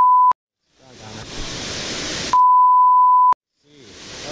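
Steady 1 kHz censor bleep covering the angler's words. It stops just after the start, and the rushing of a waterfall fades in. A second bleep of about a second cuts the water off, and the waterfall fades back in near the end.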